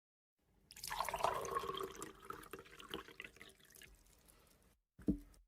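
Tea being poured, the stream strongest at first and tapering off over a few seconds, then a brief knock near the end.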